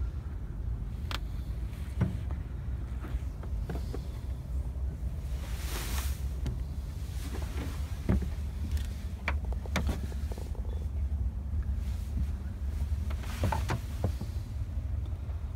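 Steady low rumble of wind buffeting the microphone, with scattered light clicks and knocks and a couple of brief hissing swells.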